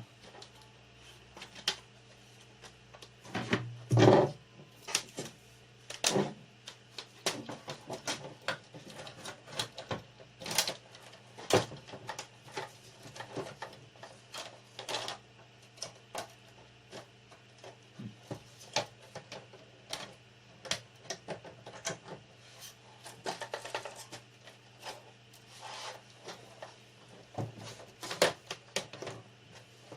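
Irregular plastic clicks, taps and knocks from the casing parts of an Asus VH192D LCD monitor being handled and snapped back into place during reassembly, over a faint steady low hum.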